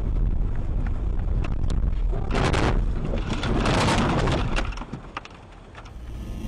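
A car running off a snowy road into deep snow, heard from a dashcam inside the car: a steady low rumble with a few sharp knocks, then about two seconds in a loud rushing crunch as snow sprays over the windscreen, dying down near the end.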